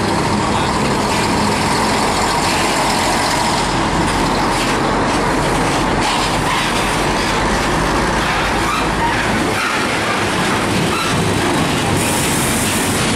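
Heavy diesel tractor units pulling flatbed semi-trailers past at low speed, among them a Mitsubishi and a Nissan Diesel C-Series: a loud, steady mix of engine running, tyre noise and trailer clatter.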